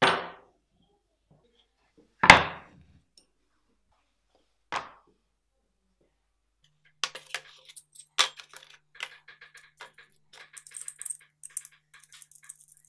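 Workshop parts set down one at a time on a plywood workbench: three separate knocks, the second the loudest. From about seven seconds in, steel hole saws clink and rattle against their plastic kit case as they are handled.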